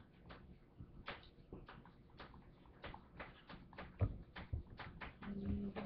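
A series of faint, irregular clicks and taps, two or three a second, with a low thump about four seconds in and a short low hum near the end.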